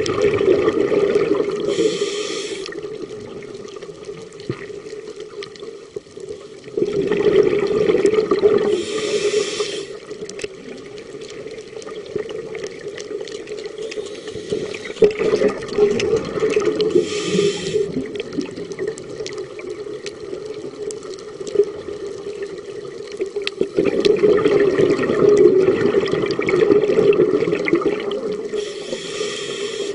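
A scuba diver breathing through a regulator, heard underwater: bursts of exhaled bubbles rumbling about every eight seconds, each followed by a short hiss.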